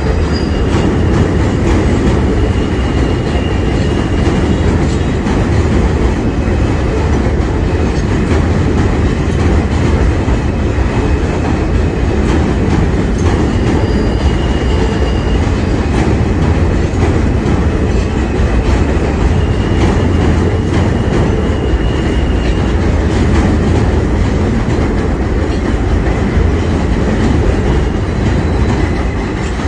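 New York City subway train running past close by on the elevated line: a steady, loud rumble of wheels on rail with clickety-clack. A faint high whine comes and goes three times.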